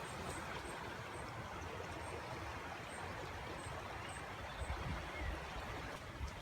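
River water running with a steady rush, with wind rumbling on the microphone.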